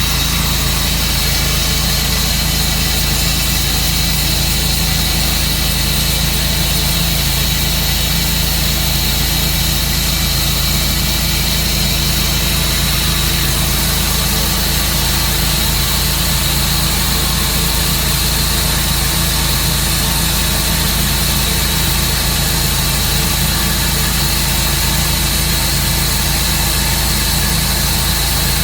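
Sawmill engine running at a steady, unchanging speed, a constant low hum with no change in load or speed.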